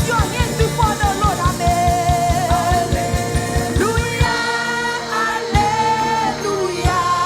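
Live gospel worship music: voices singing over a band, with a fast, even drum beat of about five thumps a second that stops about four seconds in, leaving held sung and played notes.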